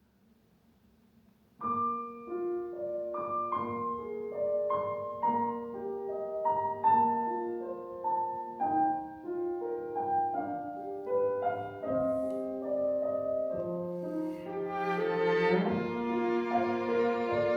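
Classical chamber music. After a second and a half of near silence, a piano comes in with an even succession of notes. Near the end, bowed strings (cello and violin) join with longer held notes.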